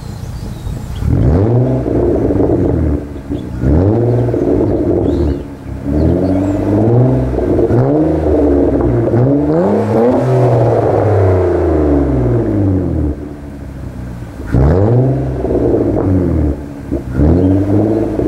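Nissan Altima 3.5 coupe's 3.5-litre V6 through an aftermarket NISMO exhaust, free-revved while standing: a string of rev blips that climb and fall back, with a longer run of back-to-back revs in the middle.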